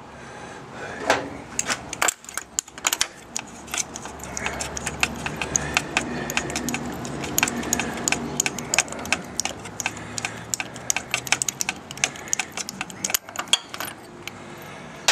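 Socket wrench ratcheting in long runs of quick clicks as a spark plug is unscrewed from the motorcycle's cylinder head, with a few louder metal clinks of the tool being fitted in the first couple of seconds.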